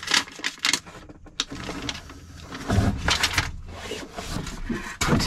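Rustling and clicking of hands handling wiring and a plastic connector at a water heater's control board, with two sharp clicks in the first second.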